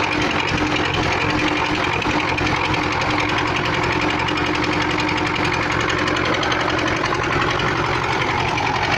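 MTZ-80 tractor's four-cylinder diesel engine running steadily with a fast, regular metallic knock, which the owner puts down to a knocking valve.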